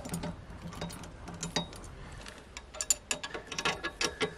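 Metal clicks and clinks of a wrench and steel parts as a nut is fitted and tightened on a power tiller's adjustable plow adaptor; the clicks are sparse at first and come in quick irregular runs from about three seconds in.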